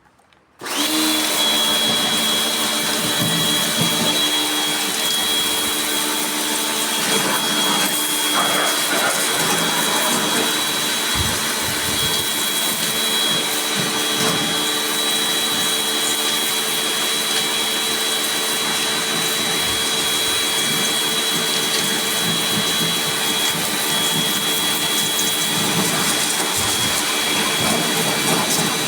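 A small electric motor switched on about a second in and running steadily, with a constant high whine over a rushing hiss.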